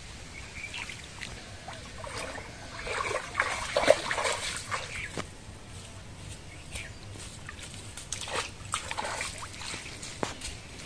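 Shallow stream water splashing and sloshing as a person wades and moves through it, busiest about three to five seconds in. A few wet steps and splashes on mud follow near the end.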